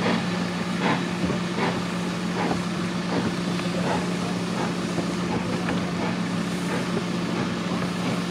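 Steam locomotive exhaust beats, slow and regular at a little over one chuff a second, fading away about halfway through, over a steady low hum.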